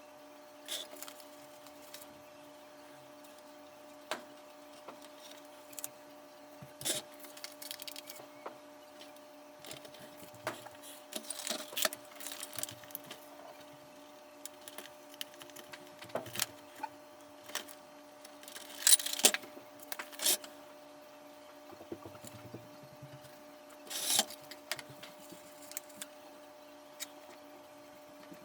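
Hands handling the plastic parts of a vintage Kenner Slave I toy: scattered clicks, taps and short rustles, the loudest cluster about two-thirds of the way through, over a steady faint hum.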